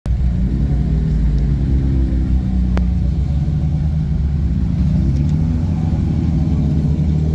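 Engines of sports cars creeping past at low speed in a slow queue, an Ultima Sports at its head, making a loud, steady low rumble. There is a single sharp click about three seconds in.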